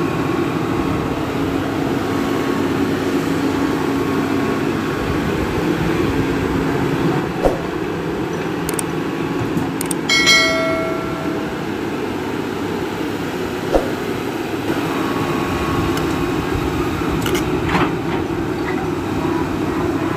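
Hitachi EX200 crawler excavator's diesel engine running steadily while it digs soil, with two sharp knocks a few seconds apart. About halfway through, a short electronic chime plays.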